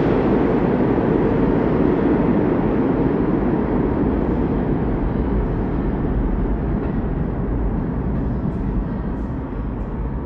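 New York City subway train pulling away down the tunnel. Its steady rumble slowly fades.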